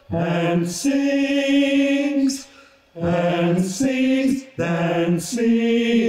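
Choir singing long held chords in slow phrases, breaking off briefly twice partway through.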